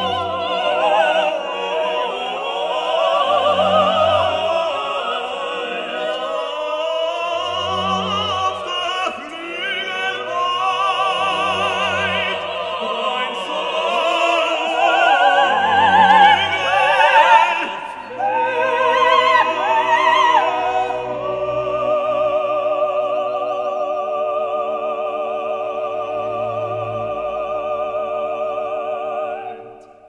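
Background classical music: an operatic voice singing with heavy vibrato over orchestral accompaniment, with a low bass note about every four seconds. Past the midpoint it settles into long held chords, which fade out near the end.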